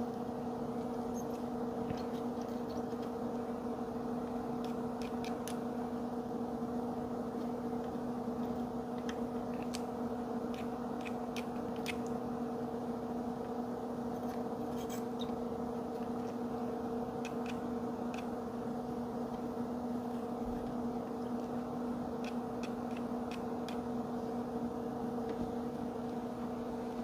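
Steady electrical hum from soldering-bench equipment, with a few faint light clicks scattered through as the iron tips work the connector pins.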